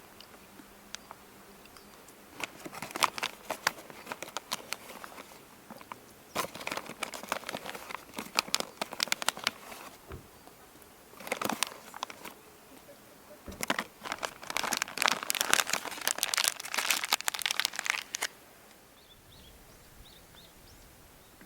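Crinkling and rustling, as of something crumpled or handled, in several bursts of dense crackles that stop a few seconds before the end.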